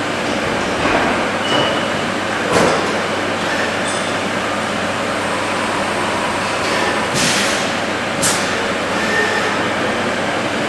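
Portable valve grinding machine running, lapping the gasket seat face in a safety valve bore: a steady grinding noise with a few short sharp sounds over it.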